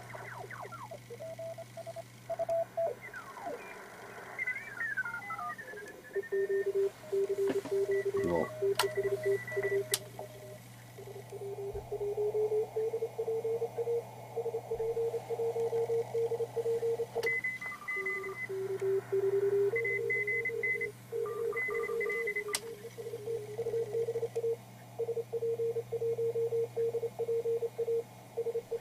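ICOM IC730 HF transceiver receiving Morse code (CW) signals on the 40 m band. For the first several seconds tones glide in pitch as the dial is tuned, then about ten seconds in one keyed Morse tone settles in, with fainter higher-pitched Morse in the background and a steady low hum.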